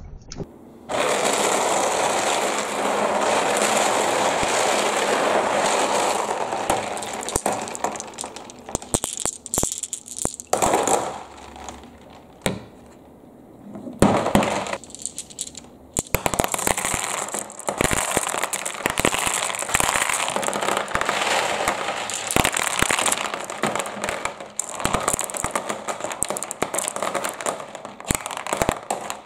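Glass marbles rolling and clattering down a wooden marble run with pegboard slides and dropping into a plastic basin of water. It is a dense rattle at first, then a long run of sharp clicks and knocks as marbles hit each other and the track.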